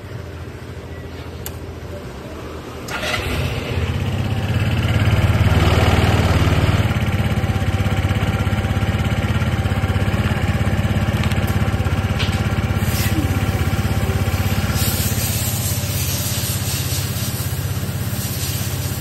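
GR125 motorcycle engine idling, then brought up to a faster speed about three seconds in and held running steadily.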